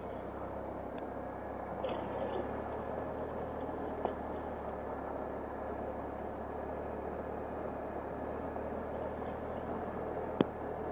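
Motorcycle engine, a 2015 Triumph Explorer XC's three-cylinder, running steadily under a rush of noise on a helmet-camera microphone. There is a short sharp knock about four seconds in and a louder one near the end.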